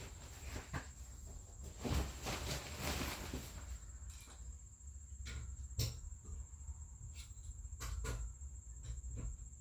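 A hand wrench is loosening a car's wheel lug nuts. There is scraping and handling at first, then a few separate sharp metallic clicks and knocks. A faint steady high whine runs underneath.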